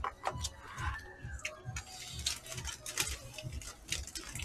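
Quiet eating sounds: irregular light clicks and taps of chopsticks and spoons against disposable takeout bowls, with soft low thumps.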